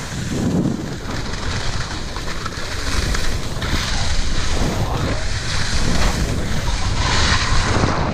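Wind buffeting the microphone of a skier descending on spring firn, over the hiss of skis sliding through the soft snow, which swells with the turns, most clearly about four seconds in and again near the end.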